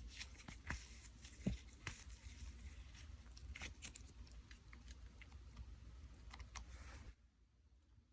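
Clay-mixed slime being squished and stretched by hand, giving soft irregular clicks and crackles. The sound cuts off suddenly about seven seconds in, leaving quiet room tone.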